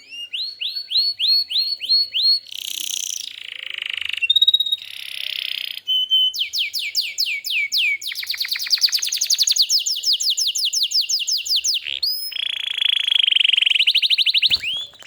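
Domestic canary singing a long, continuous song: rapid repeated trills and rising sweeping notes that change to a new phrase every second or two.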